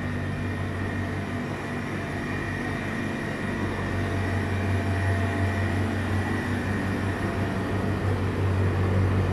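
Steady low machine hum of a convenience store's cooling equipment (refrigerated display cases, freezers and air-conditioning), with a faint steady high whine above it. It grows slightly louder in the second half.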